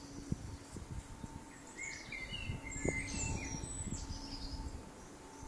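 A bird chirping and twittering: a quick run of short, high, gliding chirps lasting about two seconds in the middle, over soft knocks and rustling.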